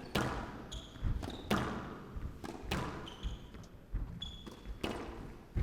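A squash rally: sharp cracks of racket on ball and ball hitting the court walls, about one a second, with short high squeaks of court shoes on the wooden floor between the shots.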